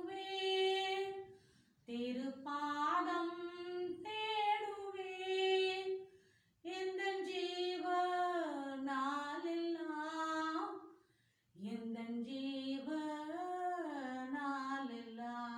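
A woman singing a Tamil devotional song unaccompanied, in four long, slow phrases of held notes that glide between pitches, with short breaks between phrases.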